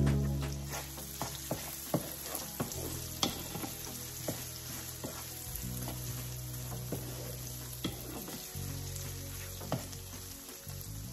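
Smoked sausage sizzling in a frying pan, with a utensil clicking and scraping against the pan as it is stirred.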